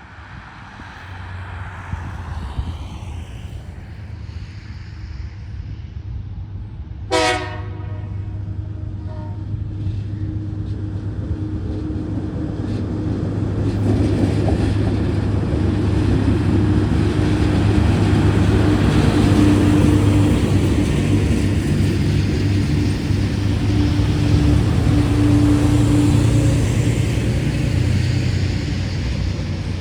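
TasRail TR-class diesel locomotives approaching with their engines droning, growing steadily louder and loudest in the second half. A brief horn toot about seven seconds in.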